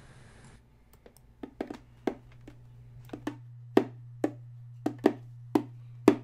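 Small hand-held frame drum struck by hand: a few scattered taps, then a steady beat of about two strikes a second, over a low steady hum.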